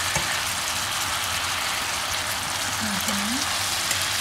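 Chicken thighs sizzling in hot fat and pan juices in a skillet: a steady hiss with fine crackles. There is a single light knock near the start.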